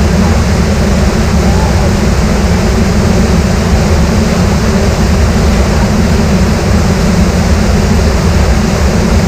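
Small river waterfall, water falling and rushing over rocks into a shallow pool, a loud, steady rush close by.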